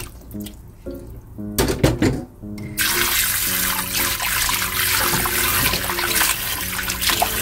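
Cold tap water running in a steady stream onto blanched butterbur stalks and a hand in a stainless steel bowl, starting about three seconds in after a few short knocks. Soft background music plays under it.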